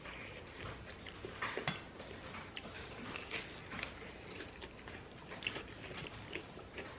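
People chewing food close to the microphone: quiet, irregular soft clicks and mouth sounds, with one louder bite about one and a half seconds in.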